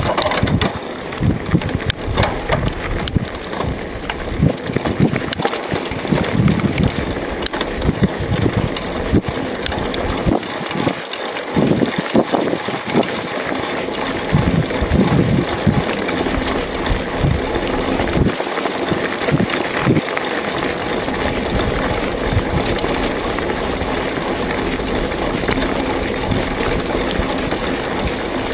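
Mountain bike riding over a bumpy dirt track: wind rushing over the microphone and tyres rolling on dirt, with frequent knocks and rattles from the bike over the ruts. It becomes smoother and steadier during the last several seconds.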